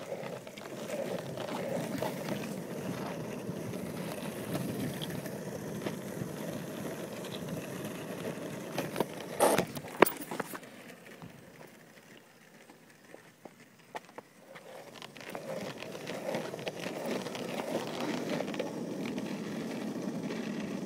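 Longboard wheels rolling on asphalt, a steady rumble that drops away about eleven seconds in and comes back a few seconds later. Two sharp knocks stand out just before the midpoint.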